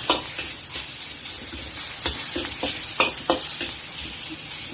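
Ground pork sizzling in a hot pan as it is stir-fried, with the stirring utensil knocking and scraping against the pan several times.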